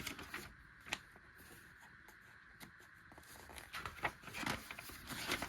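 Faint handling noises of a paper catalog: a single sharp click about a second in, then paper rustling as pages are turned near the end.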